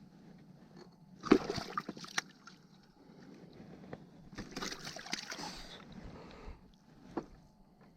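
Two bursts of splashing and sloshing water, each about a second long and a few seconds apart, as a hooked striped bass thrashes at the surface while it is landed.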